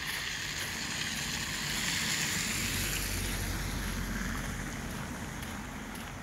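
A vehicle passing on a snowy, slushy road: tyre hiss swells to a peak about two seconds in and slowly fades, with a low rumble in the middle.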